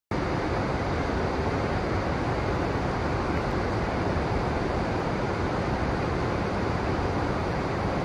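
Steady rushing of river water.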